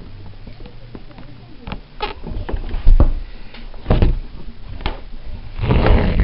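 Hands handling embroidery cloth and thread: a series of soft clicks and knocks, two heavier thumps a second apart, and a brief rustle of cloth near the end.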